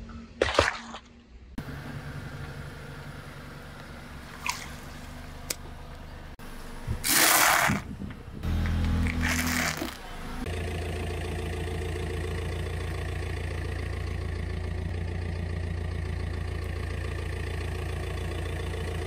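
A car tyre rolling onto and crushing objects, with a sharp crack near the start and a loud crunching burst about seven seconds in, then a car engine idling steadily through the second half.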